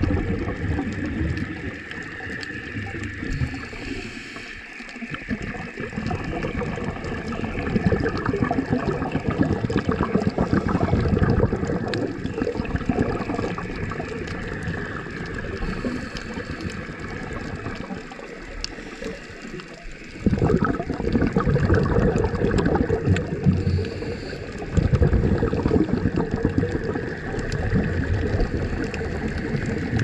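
Water rushing and sloshing around an underwater camera as it films on a coral reef, a steady muffled wash that swells and fades and turns sharply louder about twenty seconds in.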